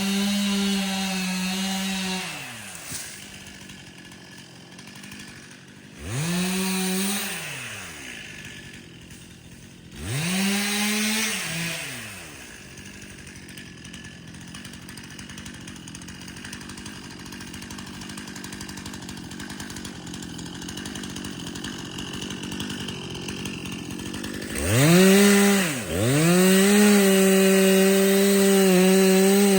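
Two-stroke chainsaw revved hard, dropping back to idle, blipped twice more with idling between, then after a long idle run up to high revs near the end and held there.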